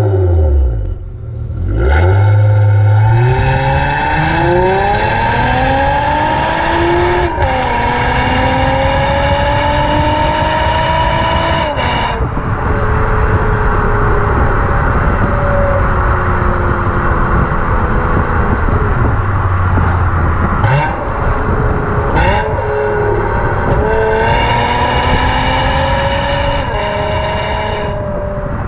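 Honda Legend's 3.5-litre SOHC VTEC V6 heard through its exhaust, pulling hard with the revs climbing steadily and dropping suddenly about seven seconds in, as at a gear change. It climbs again, then falls away off the throttle. Near the end it pulls up through the revs once more.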